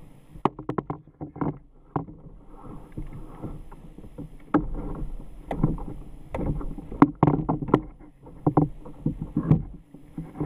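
Irregular knocks, clatter and splashes on a plastic fishing kayak on open water as a landing net and gear are handled on its deck, with low wind rumble on the microphone.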